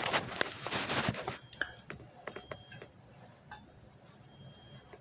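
Clatter and rustling for about the first second and a half, then scattered light clinks and clicks: dishes and cutlery being handled while eating a snack.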